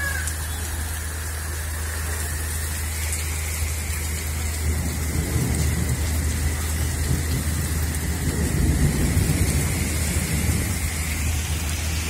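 Heavy monsoon rain pouring steadily. About four seconds in, a low rumble swells up and lasts for most of the rest.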